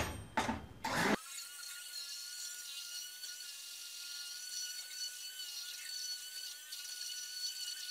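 Handheld immersion blender running with a steady high whine, starting about a second in after a couple of knocks, as it emulsifies melted butter into hot jello syrup.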